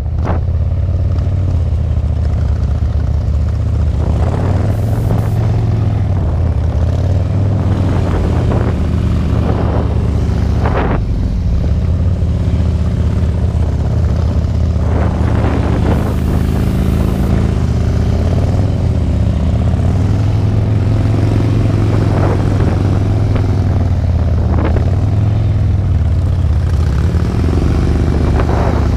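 Harley-Davidson touring motorcycle V-twin engines running at low speed with a steady low throb. Brief swells in engine sound come every few seconds as the throttle is worked through slow cone-course manoeuvres.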